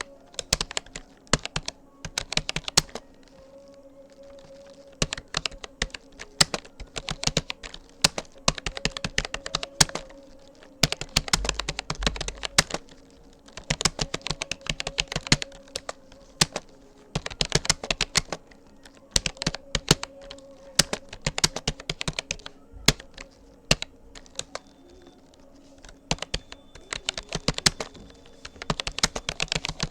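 Typing on a Rapoo computer keyboard: rapid runs of key clicks in bursts, broken by short pauses.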